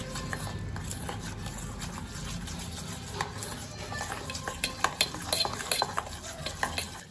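A steel spoon stirring and scraping a thick paste of roasted gram flour and oil in a stainless steel bowl, with many light clinks of spoon on bowl, over a steady low hum that stops near the end.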